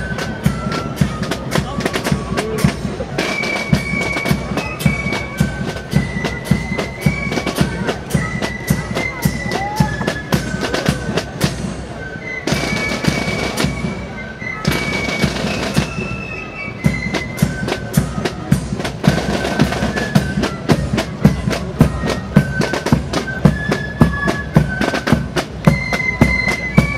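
Band music: a melody of held notes stepping up and down over constant rapid drumming, in the manner of a military pipe or fife-and-drum band.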